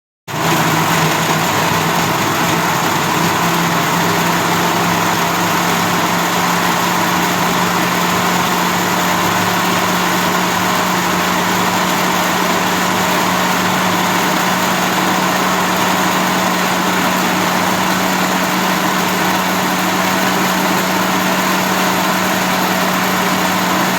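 Loud, steady rushing noise with a constant low hum, like a motor or fan running, starting abruptly about a third of a second in.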